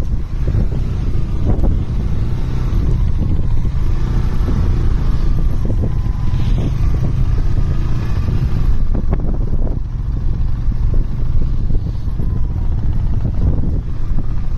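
Wind buffeting the microphone: a loud, steady, low rumble with irregular gusting.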